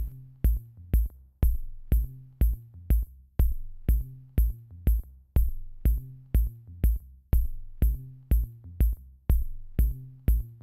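Background electronic music with a steady drum-machine beat, about two beats a second, over a bass line.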